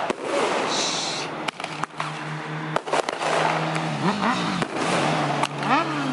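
Roman candles firing: sharp pops at uneven intervals over a steady hiss of burning fireworks.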